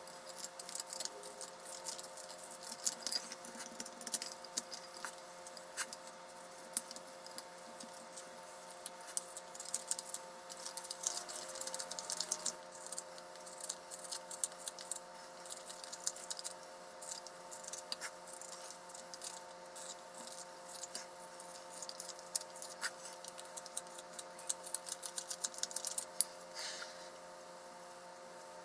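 Hook knife carving out the bowl of a wooden spoon: rapid, irregular scraping and crisp clicks as the curved blade shaves thin chips from the wood, with a few sharper cuts standing out. A steady hum of several tones runs underneath.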